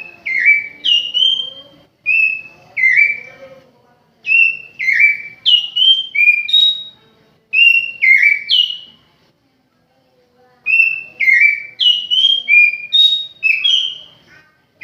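Oriental magpie-robin of the Javan race (kacer jowo) singing: short phrases of clear, whistled notes, many sliding downward, in bursts separated by brief pauses, with a longer pause about two thirds of the way through.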